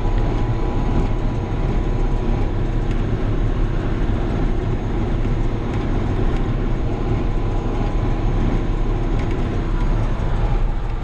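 John Deere 7200 tractor running steadily under load with its PTO driving a New Holland 570 square baler in the field: a continuous engine and machinery drone with a faint steady whine.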